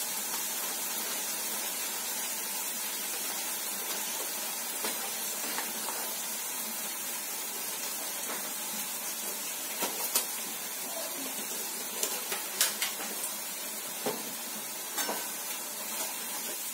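Tomato and chilli masala sizzling steadily in a steel frying pan on a gas flame, with a metal spoon clinking and scraping against the pan now and then, more often in the second half.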